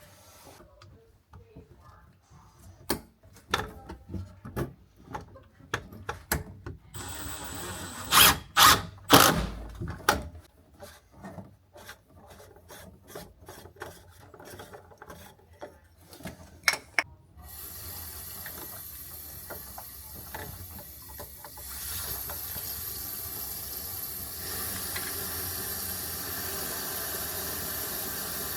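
Hand tools working on plumbing fittings: a long run of irregular clicks and knocks, several loud knocks in the middle. A steady hiss then sets in and grows louder in two steps.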